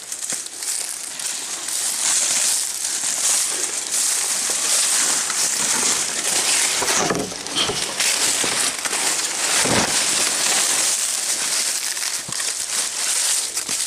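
Footsteps and brush crunching and crackling steadily as someone pushes through dense, dry undergrowth on foot.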